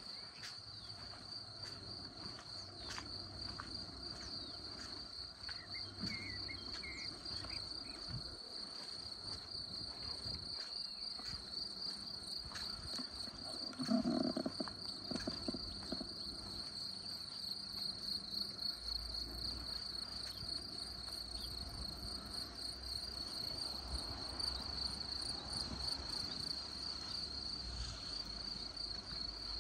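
A steady, high-pitched insect trill, pulsing evenly, over light rain with scattered drip ticks. A brief, louder low sound comes about halfway through.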